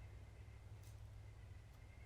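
Near silence: faint background ambience with a steady low rumble and a thin, faint high tone, and a single soft tick just before a second in.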